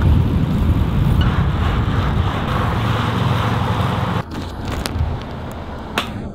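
Wind rumble and road noise of travelling along a street, cutting off abruptly about four seconds in, then quieter street sound with a single short click near the end.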